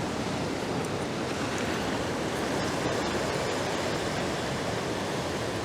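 Ocean surf: heavy swell rushing in and washing over a rock ledge, a steady rush with no single crash standing out.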